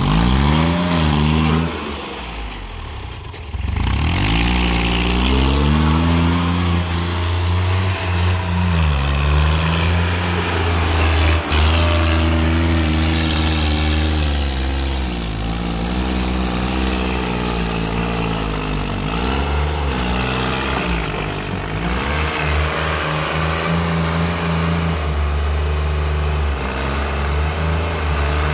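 Sonalika GardenTrac compact diesel tractor's engine revving, its pitch rising and falling again and again as the tractor is driven up onto its rear wheels in a wheelie. It dips briefly about two seconds in, then runs loud.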